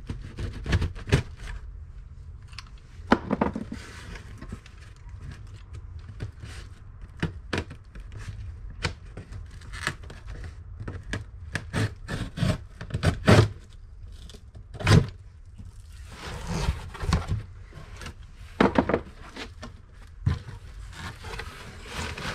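Cardboard shipping box being opened by hand: packing tape cut and torn away, with scraping, a few longer rips and many sharp knocks and taps of the cardboard.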